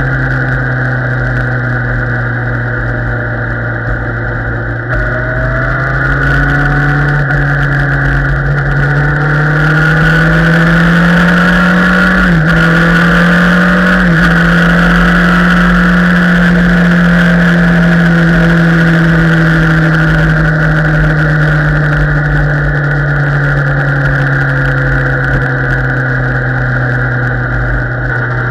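Motorcycle engine running under way while riding. Its pitch climbs steadily over the first dozen seconds, dips briefly twice near the middle, then slowly falls as the throttle eases, with a steady low rush of wind noise underneath.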